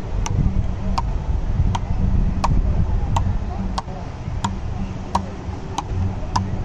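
Frescobol rally: Fastball paddles hitting a Penn ball back and forth, about ten sharp pocks in a steady rhythm, one every 0.7 s or so. A steady low rumble runs underneath.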